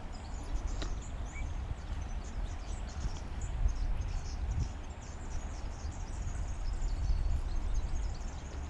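Wind buffeting the microphone in a low, uneven rumble, with high chirping calls in the background.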